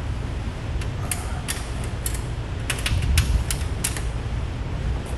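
A large sheet of wrap vinyl being lifted off its paper backing liner, flexing and crackling, with a scatter of irregular sharp ticks, most of them in the middle of the stretch. A low steady rumble runs underneath.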